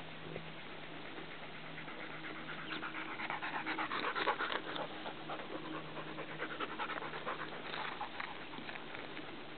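German Shepherd Dog panting fast and evenly. The panting starts about two seconds in, is loudest around the middle and fades near the end.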